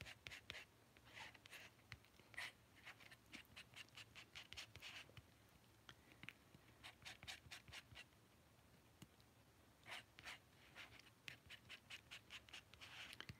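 Metal palette knife mixing acrylic paint on a plastic palette: faint, quick scraping and smearing strokes in runs, with short pauses between them.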